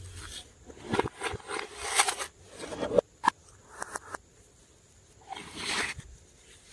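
Slime being handled and squished by hand, with irregular squelching and crackling bursts about once a second and a couple of sharp clicks in the middle.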